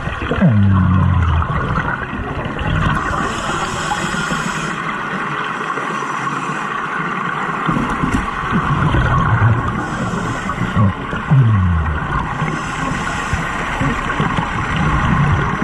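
Underwater recording of a compressor diver breathing: bursts of exhaled bubbles every few seconds over a steady motor hum. Two short low falling tones sound, near the start and about eleven seconds in.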